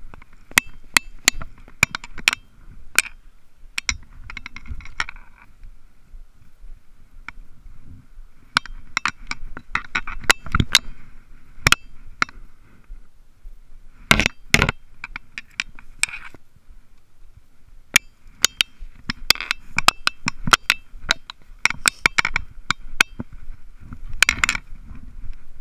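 Movement and handling noise as someone walks through dry brush with a fishing rod and a plastic bucket: irregular sharp clicks and clinks with scraping, in clusters with short lulls between.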